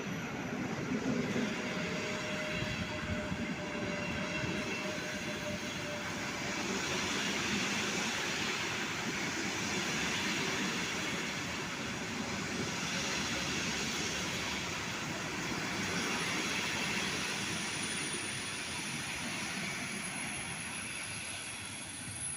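A train running past on the tracks: a steady rolling rumble of wheels on rail, with a faint high whine in the second half.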